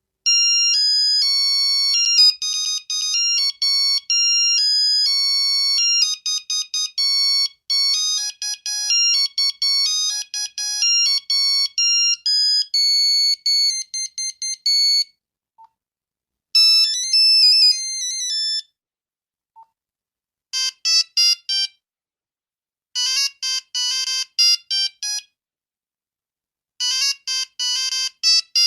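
Nokia 5110 monophonic ringtones: a long melody of single beeping notes, stopping about fifteen seconds in. After a short gap comes a brief phrase with a sliding pitch, then short clusters of rapid notes repeating every few seconds, separated by silence.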